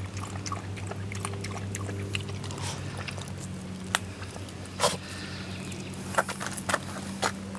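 Dog lapping water from a stainless steel bowl in quick small splashes, then a few sharp clicks and knocks, over a steady low hum.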